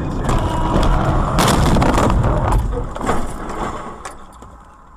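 Front of a car crashing into a minibus crossing its path: a loud crunching impact of buckling metal and plastic lasting about two seconds, a few sharper knocks, then the noise dies away.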